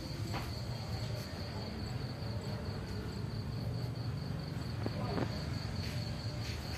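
Crickets chirring in one steady high-pitched trill, over a low steady hum, with a few soft clicks about five seconds in.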